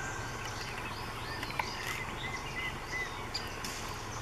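Several birds chirping and calling, with a run of four short repeated notes in the middle, over a steady low background hum. A high, rapidly pulsing buzz comes in near the end.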